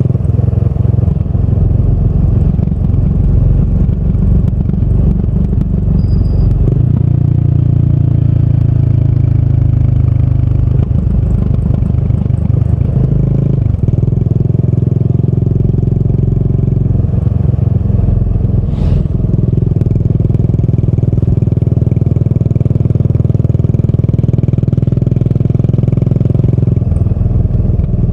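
Exhaust of a fuel-injected Yamaha SR400's single-cylinder four-stroke engine through a tapered-cone slip-on muffler, running steadily, its note changing about seven seconds in and again with a short break near the middle.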